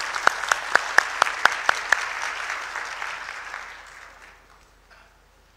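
Audience applause. It swells, with about eight sharp, evenly spaced claps at about four a second standing out in the first two seconds, then dies away over the last couple of seconds.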